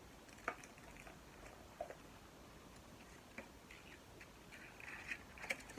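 Faint handling sounds: scattered light clicks and taps, with a brief soft rustle about five seconds in, as a phone screen replacement kit and its small free tools are handled.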